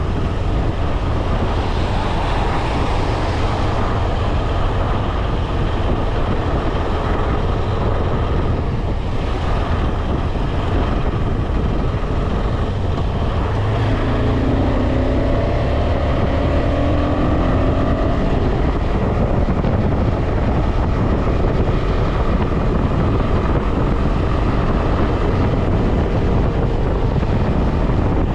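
KTM 250 Adventure's single-cylinder engine running steadily at highway speed, mixed with heavy wind rush on the microphone. A few brief steady tones show up about halfway through.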